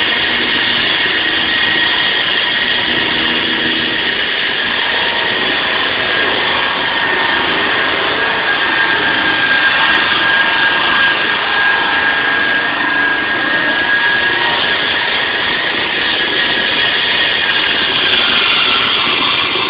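SAW160 concrete saw running loud and steady: a high whine over a noisy rush. The sound starts to die away at the very end.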